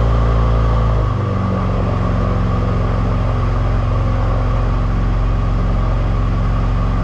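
Airboat engine and propeller running loud and steady as the boat cruises, easing off slightly about a second in and then holding at a lower, even pitch.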